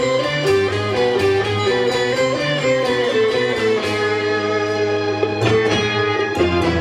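Live band playing an instrumental passage: an electric guitar melody moving note to note over a bass line and a drum kit with cymbals.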